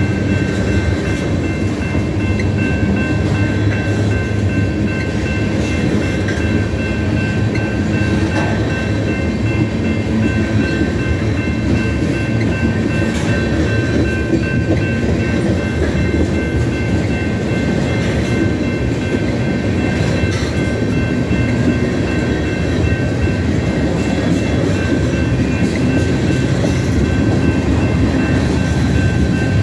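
Freight train of tank cars rolling steadily past at close range: a continuous rumble of wheels on rail, with a few thin steady high tones over it.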